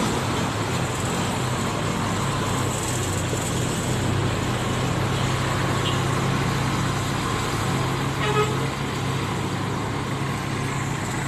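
Diesel engine of a Mercedes-Benz OH 1526 coach running at low speed as the bus manoeuvres slowly, a steady low drone. There is a short higher-pitched sound about eight seconds in.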